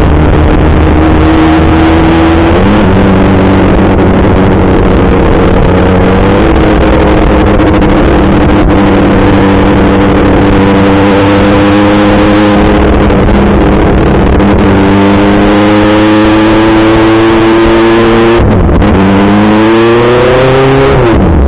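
Kawasaki ZX-6R 636's inline-four engine running under way at fairly steady revs, with a drop in pitch about 3 s in and another step about 6 s in, then a dip and a quick rise in revs near the end. A heavy even rush of noise lies under the engine throughout.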